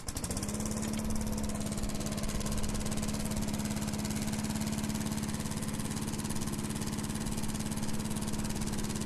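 Small lawnmower engine running at a steady speed, an even pulsing hum that holds one pitch throughout.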